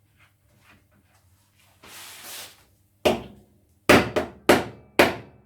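Hammer blows driving a nut into place on a homemade bandsaw circle-cutter jig: a brief rustle about two seconds in, then a run of sharp strikes, about two a second, each with a short ring.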